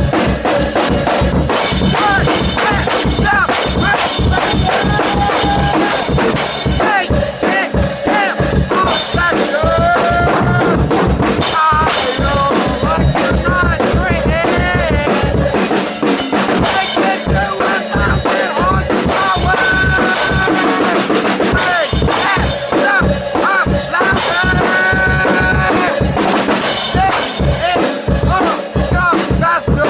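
Loud music with heavy bass, a drum kit and a singing voice, played back turned up loud.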